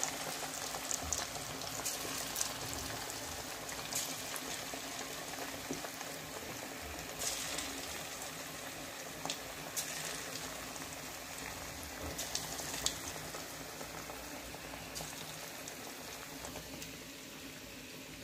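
Marinated chicken pieces deep-frying in hot oil in a kadhai: a steady bubbling sizzle with a few sharp crackles now and then.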